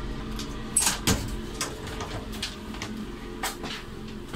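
Two sharp clicks about a second in, then a scattering of lighter ticks and knocks, the sound of a door and its fittings being handled, over the steady low hum of the train carriage.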